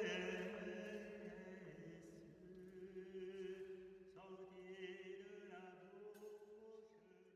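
Liturgical chant sung on long held notes, fading slowly away and dying out near the end.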